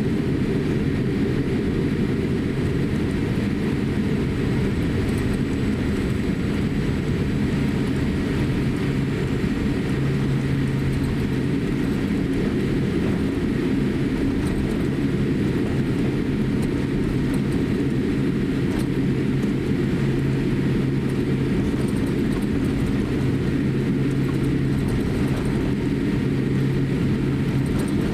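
Steady low drone inside the cabin of a Boeing 787-8 taxiing on the ground at taxi power. A low hum in it grows stronger about ten seconds in.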